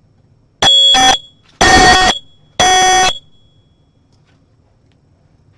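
A 9-volt battery smoke detector's piezo horn sounding three loud, shrill beeps about a second apart, in the three-beep temporal alarm pattern, as the detector is set off for a test.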